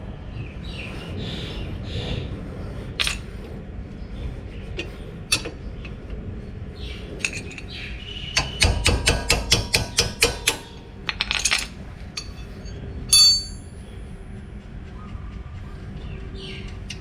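Socket wrench on a 14 mm brake caliper bolt: scattered metal clinks of the tool, then a quick even run of about a dozen ratchet clicks roughly halfway through as the bolt is loosened. A single ringing metal clink follows a few seconds later.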